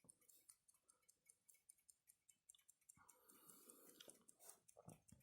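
Very faint, fast, even ticking of a mechanical pocket watch's movement. From about three seconds in it is joined by soft handling rustle and a few light knocks.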